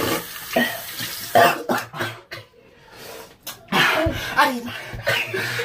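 Coughing and rough, breathy gasping from men whose mouths are burning from hot peppers. After a short lull there is a loud, open-mouthed, breathy cry about four seconds in.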